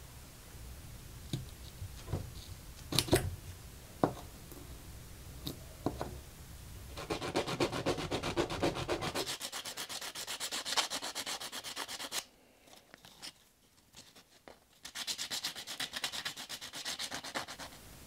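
A metal fishing-lure blade being sanded by hand with sandpaper, in rapid back-and-forth scraping strokes. The sanding starts about a third of the way in, stops briefly past the middle, then resumes. It is preceded by a few light knocks and clicks of the metal being handled.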